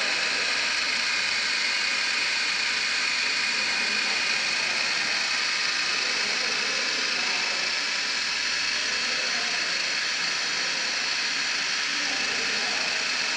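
Woodworking CNC router running: a steady hiss with a faint high whine.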